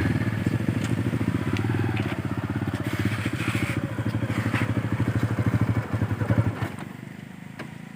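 A small engine running with a fast, even pulsing beat, which stops about six and a half seconds in.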